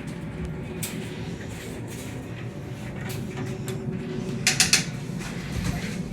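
Metal lighting stand being handled: creaks and scattered clicks, with a quick run of loud clicks and clanks about four and a half seconds in.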